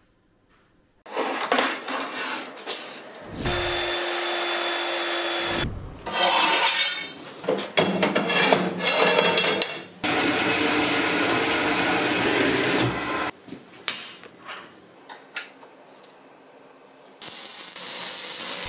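Metalworking power tools in a run of short segments: a motor spins up about three seconds in and runs steadily, rough irregular tool noise follows, then a steady loud stretch stops suddenly, leaving scattered clicks and a hiss near the end.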